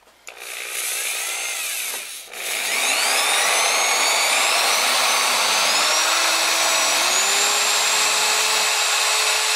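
Power drill with a 21/64 in bit boring into the metal nipple on a Ford Coyote engine's coolant water neck: a run of about two seconds, a brief pause, then a long run whose motor whine climbs in steps.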